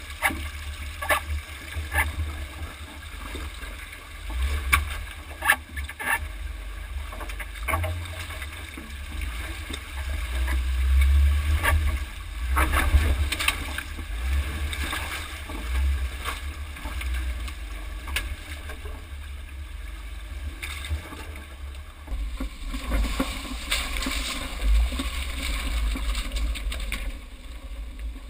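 Jeep Wrangler JK crawling through a rocky creek, heard from under the chassis: a steady low engine rumble with water splashing and irregular sharp knocks as the tyres and underbody work over the rocks.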